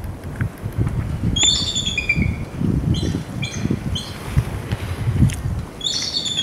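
Bald eagle calling: a run of thin, high, chittering notes that fall in pitch, heard three or four times, at about a second and a half in, around three and four seconds, and again near the end. A low rumbling noise runs underneath and drops away near the end.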